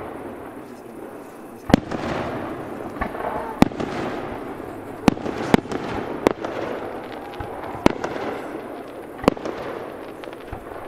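Fireworks display: aerial shells bursting with sharp bangs, about seven of them, unevenly spaced, over a continuous noisy crackle.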